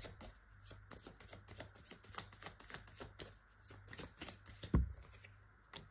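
Tarot cards being shuffled by hand: a quick run of soft card clicks and flicks several times a second, with a dull thump near the end.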